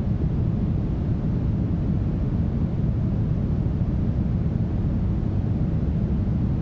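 Smoothed brown noise: a steady, even, deep rush with most of its weight in the low end and little hiss above, unchanging throughout.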